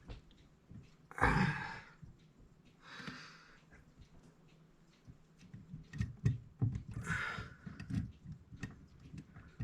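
A man breathes out heavily three times, the first, about a second in, the loudest. Light clicks and taps of small clock parts being handled come in the second half.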